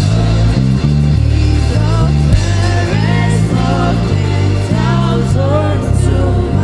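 Gospel praise band playing between sung lines, with a prominent bass line moving from note to note under guitar and keyboard.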